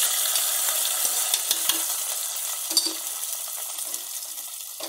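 Hot oil tempering with dried red chillies sizzling as it is poured onto wet mashed amaranth greens: a loud hiss that slowly dies down. A few light clicks of a steel ladle scraping the pan come through it.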